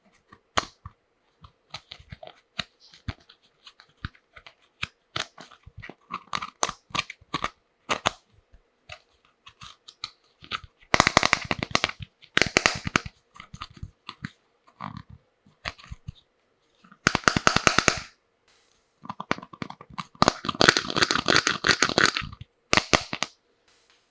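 Small plastic toy pieces clicking and knocking together, with three bursts of crinkling, tearing plastic packaging as a toy tea set is unboxed.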